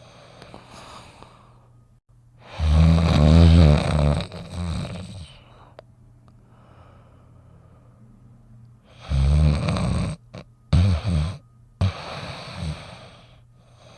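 A large dog snoring in its sleep: two long, loud snores about six seconds apart, the second followed by a few short snorts, with fainter breathing between them over a steady low hum.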